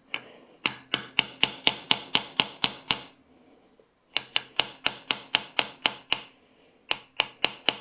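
Light, rapid hammer taps, about four or five a second, in three runs with short pauses between them, driving a pistol sight sideways into the slide's dovetail. The sight is a snug fit and is being worked in a little at a time.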